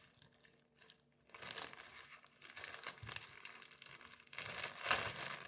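Rustling and crinkling handling noise with irregular crackles, from hands rummaging through parts for a wire. The loudest crackle comes about five seconds in.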